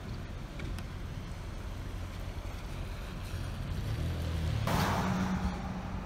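Steady road rumble of a car driving on a wet street. About four and a half seconds in, a vehicle passes close alongside, its engine note rising and its tyres making a short, loud whoosh on the wet road.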